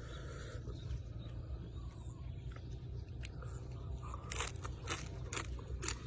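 A man biting and chewing cooked beef offal: short crunching clicks from the mouth, coming thicker in the second half, over a steady low hum.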